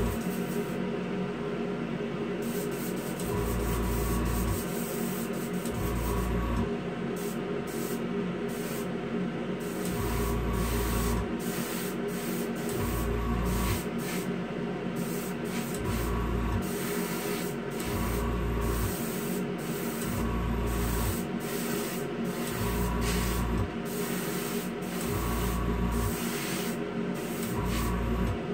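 Hobby spray booth extraction fan and airbrush compressor running with a steady hum, while an airbrush sprays clear coat in short repeated bursts. A deeper hum cuts in and out every two to three seconds.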